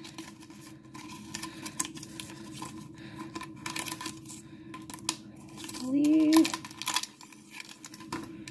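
Cardboard toy blind box being opened by hand: flaps pulled back and the inner carton slid out, with rustling and many small clicks and scrapes, then a foil bag handled near the end. About six seconds in there is a brief pitched sound, rising slightly.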